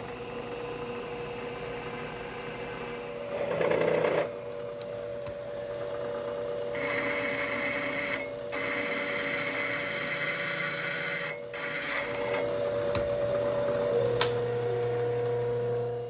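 Bridgeport milling machine's spindle running with a steady whine while a center drill and then a half-inch twist drill cut into a square metal tube. A harsher cutting sound comes from about seven to twelve seconds in. Near the end the whine drops slightly in pitch.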